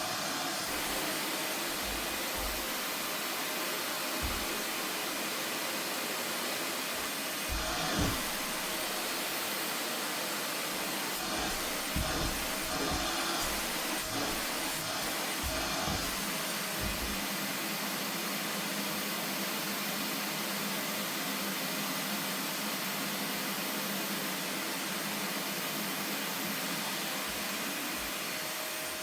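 Vacuum cleaner running steadily, with a faint high whine and a few short, low knocks scattered through.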